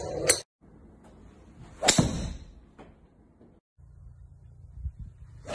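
Golf clubs striking balls: three sharp cracks, one just after the start, the loudest about two seconds in, and a driver hitting off a tee near the end. There are brief dead silences between them.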